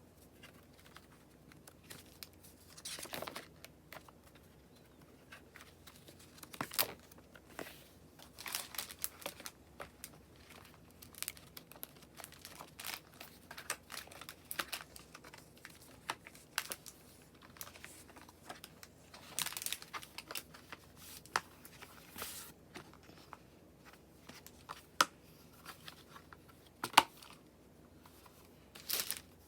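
Packaging being unwrapped and handled: crinkling and tearing in irregular bursts, with scattered sharp clicks and taps, the loudest a click near the end.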